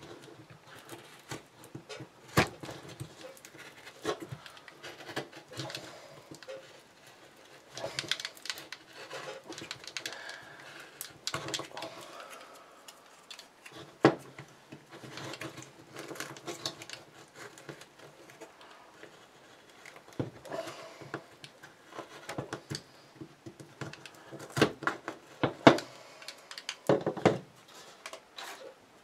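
Hands handling a paper-cased firework ball shell on a workbench: paper and foil rustling and crinkling, broken by scattered sharp taps and clicks, with louder knocks about two seconds in, halfway through and in a cluster near the end.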